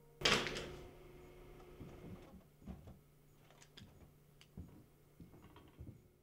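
A single loud bang with a short ringing tail, then scattered light taps and clicks of a marker on a whiteboard.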